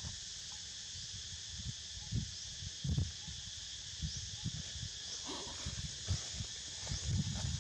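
Steady, high-pitched insect chorus hissing throughout, with irregular low thumps and rustles over it.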